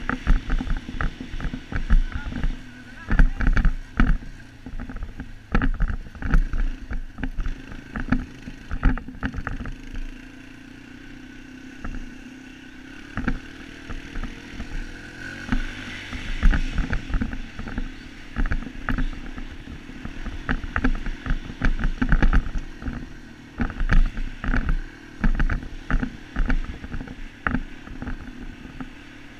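Dirt bike engine running as the bike rides over a rough dirt trail, with frequent knocks and rattles from the bumps. The pitch rises briefly about halfway through.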